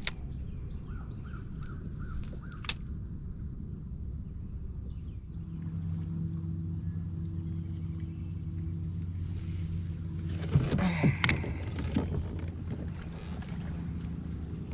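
Low rumble with a steady motor hum setting in about five seconds in, the kind a boat engine running out on the lake makes. A brief clatter of knocks comes near ten seconds in.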